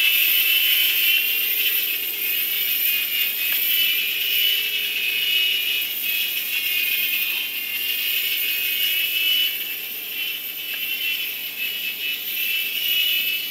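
A $10 two-channel toy helicopter flying. Its small electric motors give a high whine and its rotors buzz, and the pitch and level waver as the throttle changes.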